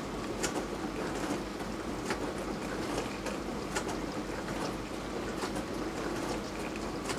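Beko DWD5410W full-size dishwasher running a wash cycle: a steady pump hum with water spraying and sloshing inside the tub, and irregular sharp spatters of water against the dishes and door.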